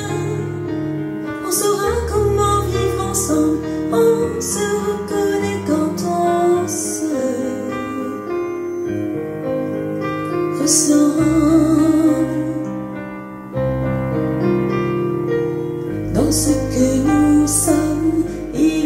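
Music: a slow chanson with piano accompaniment and a woman singing.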